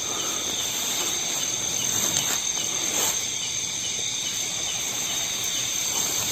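Steady chorus of forest insects, crickets or cicadas, a continuous high-pitched trill over a low background hiss.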